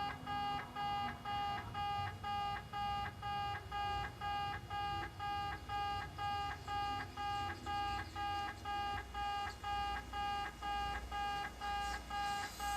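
Japanese level-crossing warning alarm of the electronic 'pee-pee' type, sounding a steady beeping tone about twice a second. A rushing noise joins near the end.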